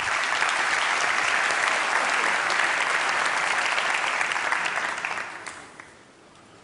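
Audience applauding, a dense crackle of clapping that dies away about five and a half seconds in.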